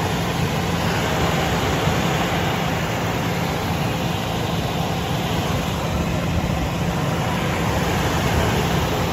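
Truck engine idling steadily under an open hood, a constant low hum with an even rush of noise over it.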